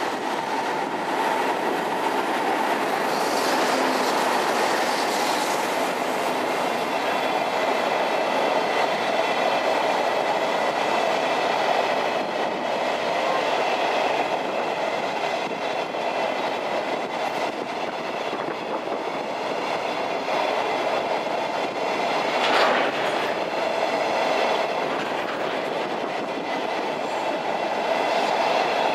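Long train of flat freight wagons hauled by an EF65 electric locomotive rolling slowly past: steady wheel-on-rail noise with a thin high squeal running over it for much of the time. A single sharp clank rings out about three quarters of the way through.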